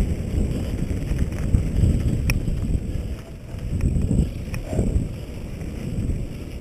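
Wind buffeting a helmet-mounted camera's microphone on a fast descent down a dirt trail, with a low rumble from tyres on dirt that swells and fades, and a few sharp clicks and rattles from the bike over rough ground.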